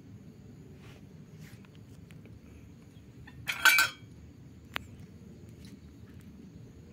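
A kitten's small collar bell jingling briefly a little past halfway as it moves, followed about a second later by a single sharp click.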